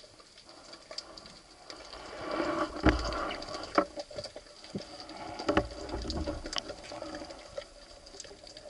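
Underwater sound picked up through a camera housing: a faint steady hiss with a thin high tone, then from about two seconds in a swell of muffled rustling and several dull knocks as a diver's gloved hands and wetsuit move right beside the camera.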